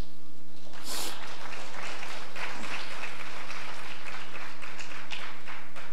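Congregation applauding in a church sanctuary, starting about a second in and dying away near the end.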